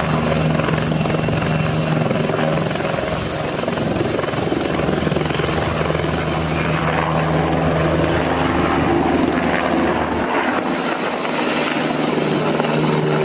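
Eurocopter Tiger attack helicopter's twin MTR390 turboshaft engines and four-blade rotor at take-off power as it lifts off, hovers and climbs away, with a steady high turbine whine over the rotor noise. The deep low rumble thins out about ten seconds in.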